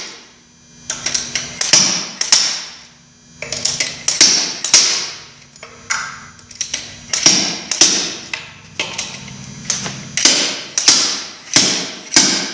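Slide hammer's sliding weight repeatedly slamming against its stop, sharp metallic clanks with a short ring, about one to two a second in irregular bunches. It is jerking a stuck front pump out of a Ford E4OD automatic transmission case as the pump starts to work loose.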